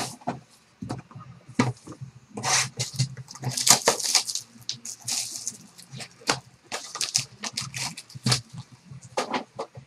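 Crinkling and rustling of foil trading-card packs and plastic box wrap being handled and moved across a table, in short irregular bursts, busiest around the middle, with a few dull knocks as items are set down.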